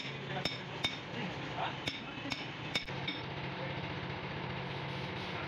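Light, sharp metallic taps, about six in the first three seconds, over a steady low hum of workshop machinery.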